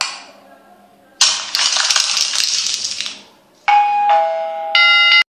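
Sound effects of a subscribe-button animation: a sharp hit at the start, about two seconds of hiss-like noise, then a descending two-note ding-dong bell chime and a brighter ring that cuts off suddenly.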